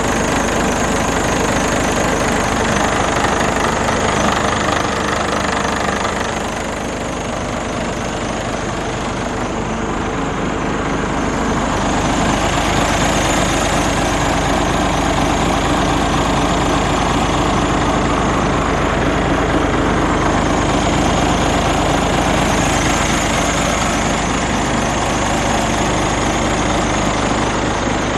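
Scania R410 truck's 13-litre inline-six diesel idling steadily, a little quieter for a few seconds about six seconds in.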